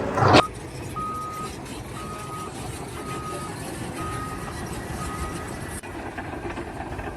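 A vehicle's reversing alarm beeps five times, about once a second, over steady engine and site noise. A brief loud noise comes right at the start.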